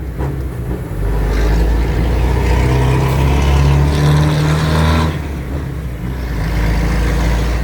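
Volkswagen 8-140 truck's intercooled diesel engine revved up from idle about a second in, held at higher revs and climbing a little for about four seconds, then dropping back to idle.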